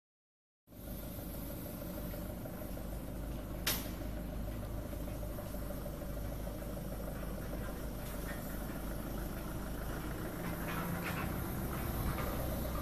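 Bag packing machine and its belt conveyor running with a steady mechanical hum and low rumble. There is a single sharp click a few seconds in and some light rattling near the end.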